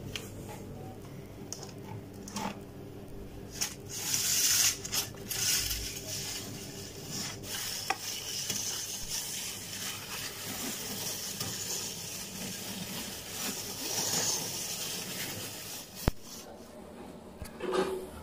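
An RGB LED strip and its plastic reel being handled and unwound by hand: rubbing and scraping with a few sharp clicks, loudest about four to six seconds in.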